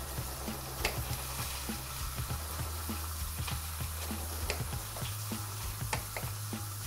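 Knife slicing an orange into rounds on a cutting board, with a few sharp knife taps against the board, over a steady sizzle of food browning in hot oil. Low background music runs underneath.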